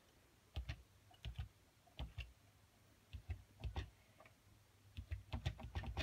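Push buttons on a BT Viscount telephone's keypad being pressed one after another to dial a number, giving a string of short plastic clicks in small groups with brief pauses between them.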